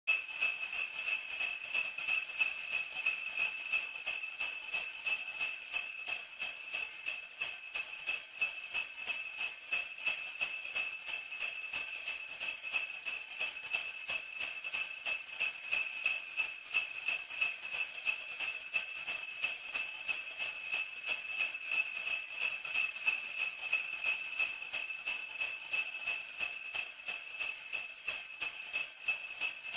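Sleigh bells jingling in a steady shaken rhythm, about two to three pulses a second, never pausing.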